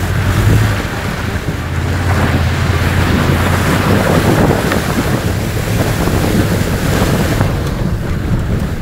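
Off-road 4x4 driving through a river: water rushing and splashing against the body and spraying over the windscreen, heard from the cab, with the engine's steady low drone underneath.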